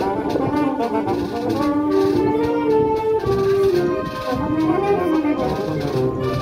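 Wind band of brass and saxophones playing a dobrado, a Brazilian military-style march: a melody in several voices over steady beats of the marching drums.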